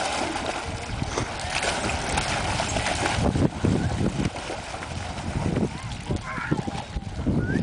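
English springer spaniels and other dogs splashing as they wade and swim through shallow lake water, with wind rumbling on the microphone.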